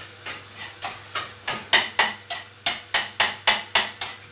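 A spoon knocking against a stainless steel pot while stirring sautéing onions, a regular clinking at about three strikes a second.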